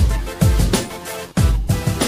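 Background music with a steady beat of deep kick-drum hits.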